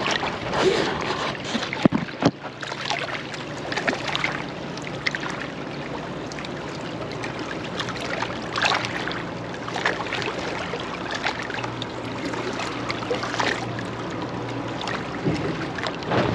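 Water moving and wind on the microphone, with scattered clicks and knocks and a low steady hum underneath that fades out near the end.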